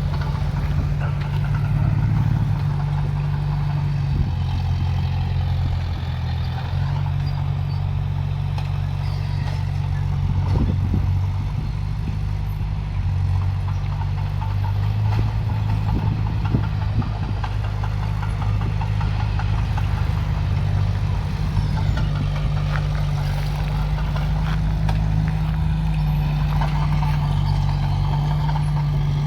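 Heavy diesel engines of a bulldozer and dump truck running steadily at work, the engine note shifting slightly, with a few metallic clanks about ten and sixteen seconds in.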